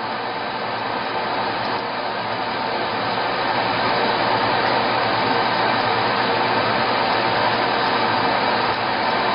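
Fiber laser marking machine running while it marks plastic: a steady whirring hum with no breaks.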